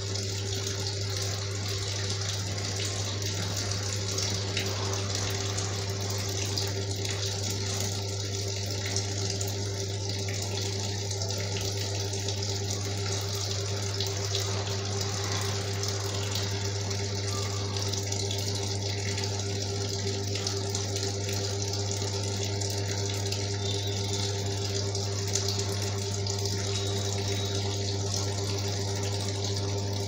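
Electric water-pump motor humming steadily with a low, even drone, over water churning with the foamy wash in a top-load washing machine tub.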